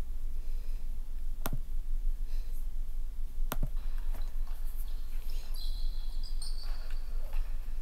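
Two sharp computer-mouse clicks, about two seconds apart, over a steady low electrical hum, with faint high-pitched chirps near the end.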